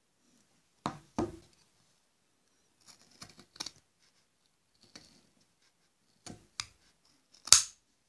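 Metal scissors snipping through a strip of fur: a series of short, separate snips at uneven intervals, the loudest near the end.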